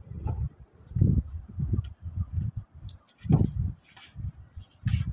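Steady high-pitched chirring of insects, with irregular low rumbles of wind buffeting the microphone.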